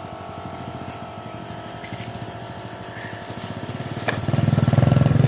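Small 125cc pit bike engine running, fairly quiet at first, then growing much louder about four seconds in as it is revved up.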